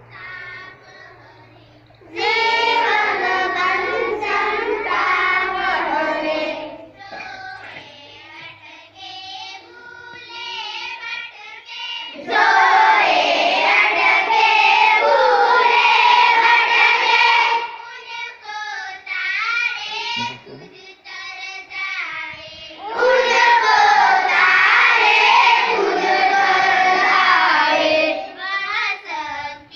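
A group of children singing a prayer together. Three loud sung passages come in about 2, 12 and 23 seconds in, with quieter singing between them.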